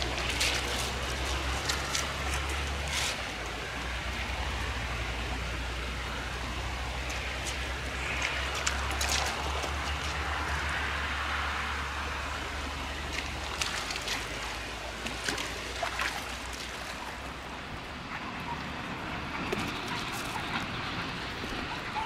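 A shallow river flowing over stones, a steady rushing, with scattered sharp clicks. A low wind rumble on the microphone fades out about halfway through.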